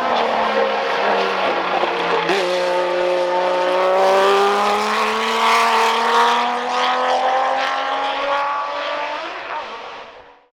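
Procar 4000 race car with an inline six-cylinder engine: the engine note drops, jumps briefly about two seconds in, then climbs steadily in pitch as the car accelerates. The sound fades out near the end.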